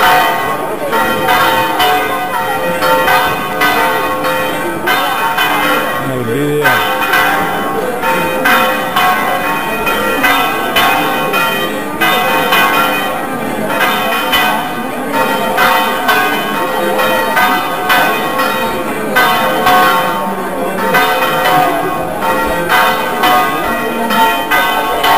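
Church bells ringing, struck over and over, their tones ringing on between strikes.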